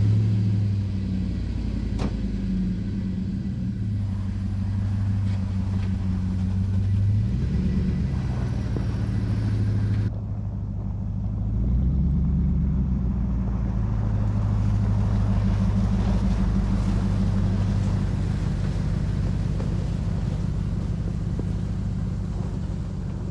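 Pickup truck engine running at low speed while the truck is pulled ahead a short way to level it, its pitch rising and settling briefly twice.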